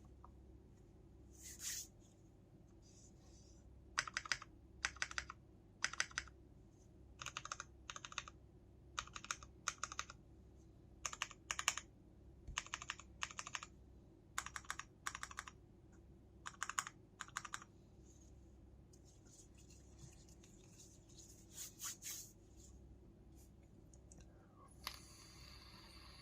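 Cidoo V65 mechanical keyboard with lubed and filmed Gateron Milky Brown tactile switches, its keys pressed one at a time in an uneven rhythm, each keystroke a short click. The presses come mostly between about four and eighteen seconds in, with a few more near the end.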